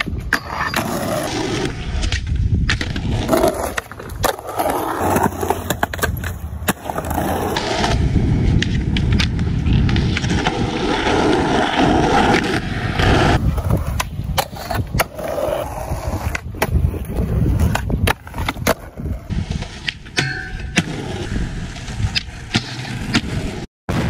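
Skateboard wheels rolling on concrete, with sharp clacks of boards popping and landing and trucks scraping on a metal rail and ramp coping. The sound changes abruptly several times as short clips are cut together.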